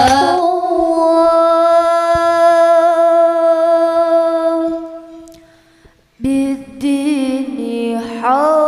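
Amplified singing through a PA sound system: a voice holds one long, steady note for about four seconds, then fades away. After a short gap the singing starts again with moving phrases.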